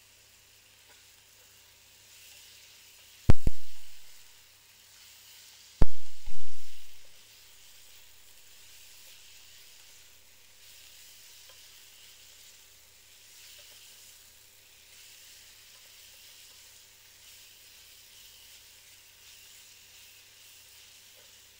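Minced meat sizzling faintly as it is stirred in a saucepan with a plastic paddle. Two sharp, loud knocks, about three and six seconds in, are the loudest sounds.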